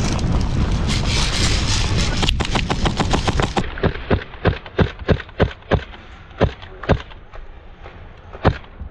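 Airsoft guns firing single shots: a quick string of sharp cracks about two a second, then one more near the end. Before the shots, a steady rumbling noise, like wind on the microphone or movement, fills the first few seconds.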